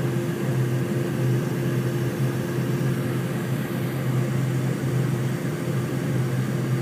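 Jet airliner's engines heard from inside the cabin during the climb after takeoff: a steady drone with an even low hum.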